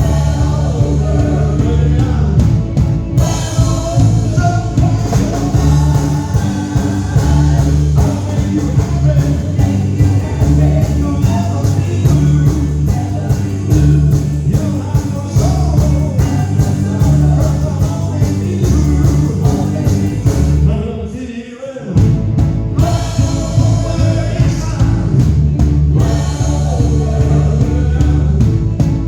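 Rock and roll song with singing over a band with a strong, steady beat. The music drops out for a moment about three-quarters of the way through, then comes straight back in.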